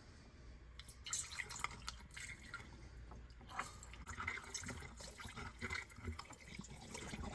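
Vinegar-and-water solution being poured through a funnel into a PVC air conditioner condensate drain line, splashing and trickling irregularly as the line fills; it starts about a second in.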